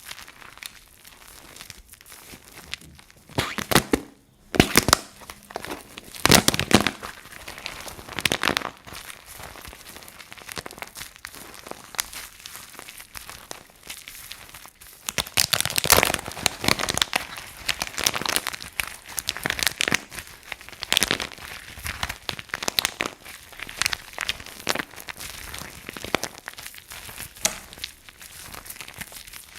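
Dry soap crunching: dense, irregular crisp crackles and snaps, with a few louder flurries of crunches, the biggest a little past the middle.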